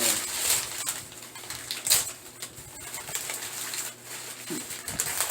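Packing wrap around a shipped orchid being torn and crinkled by hand, in several rustling bursts.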